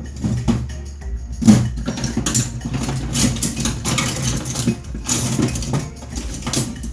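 Irregular clicks and knocks of small tools and parts being handled on a repair bench, over a steady low hum.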